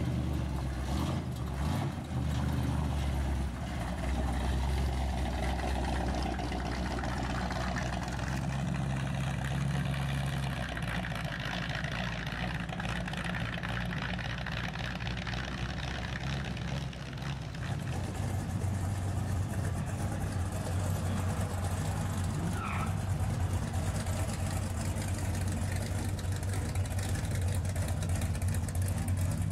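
Engines of old cars and trucks rolling past at low speed, a deep steady engine note, with a different engine taking over about eighteen seconds in as an old pickup approaches.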